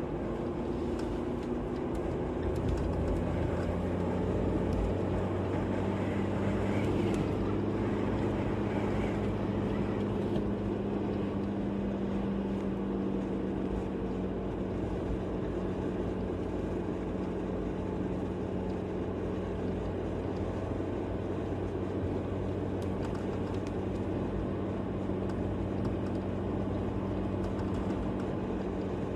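A vehicle engine running steadily with road noise, as from a moving vehicle. It grows a little louder for a few seconds near the start.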